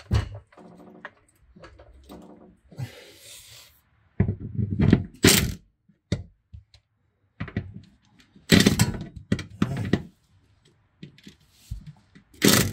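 Hand tools knocking and clunking against metal while car bolts are worked loose with a socket wrench: several loud thunks, with quieter clatter between them.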